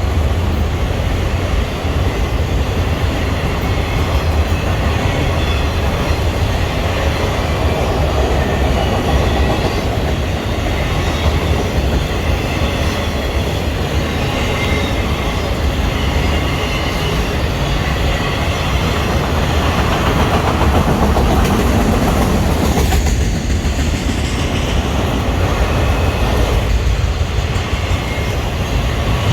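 A train rolling by, a steady loud rumble of steel wheels on rail with the clickety-clack of the cars.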